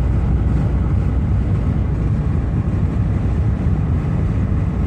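Steady road and engine noise of a car travelling at highway speed, heard from inside the cabin as a constant low rumble.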